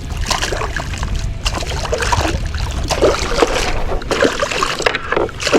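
Water splashing and sloshing around a fishing kayak in irregular bursts, over a steady low rumble.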